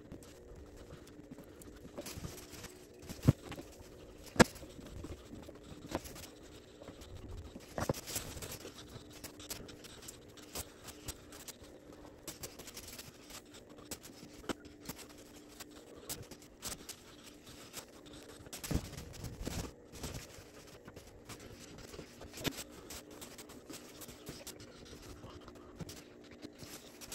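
Scattered clicks, knocks and scraping of hand work on fiberglass patches, over a steady low hum. Two sharp knocks, a little after three and four seconds in, are the loudest.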